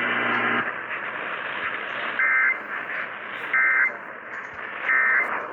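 Emergency Alert System end-of-message over broadcast radio: three short, identical squawks of SAME digital data tones, about 1.4 s apart, over steady radio hiss. They mark the end of the relayed weather warning.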